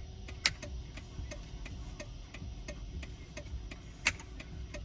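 Street sweeper's flasher relay ticking steadily while the hazard flashers and beacon run, about three clicks a second, over a low rumble. A sharper click about four seconds in.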